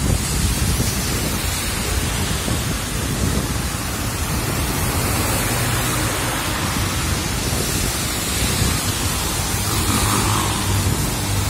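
Heavy rain pouring down in a steady, dense hiss on a wet road, with the low hum of motorcycle engines as motorbikes ride through the downpour in the second half.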